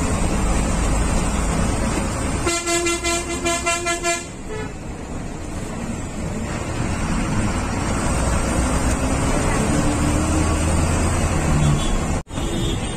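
Bus engine and road noise heard from inside the cabin, with a vehicle horn sounding for about a second and a half a few seconds in. Later the engine note rises steadily, and the sound drops out for an instant near the end.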